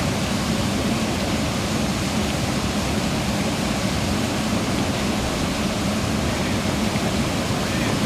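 Steady, unbroken rushing noise of water and wind, even in level throughout.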